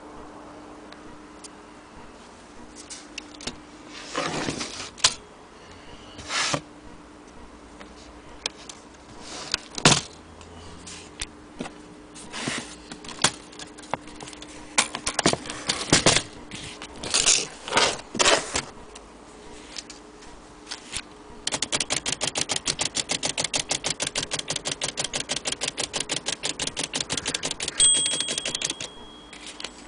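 Vintage Underwood typewriter being worked: scattered clicks and clacks of keys and mechanism, then a fast, even run of clicks for several seconds, and a short bell ring near the end.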